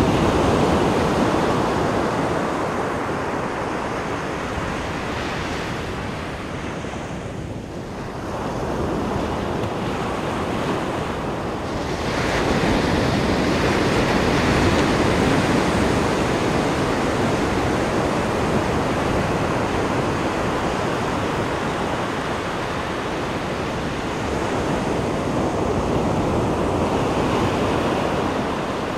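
Ocean surf breaking and washing up a sandy beach, a continuous rushing that swells and eases as the waves come in, with a lull about eight seconds in.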